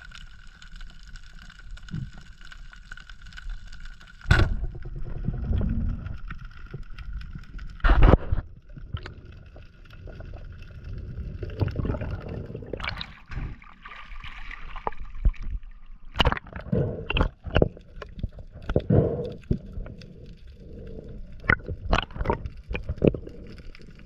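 Underwater sound heard through a diver's action camera. For the first four seconds there is a steady hum of several tones. Then come irregular knocks and bubbling, with two heavy thumps about four and eight seconds in, and many sharp clicks in the second half.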